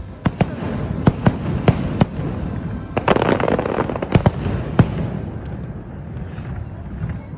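Fireworks shells bursting in a quick series of sharp bangs, with a dense crackling wash about three seconds in; the bangs thin out after about five seconds.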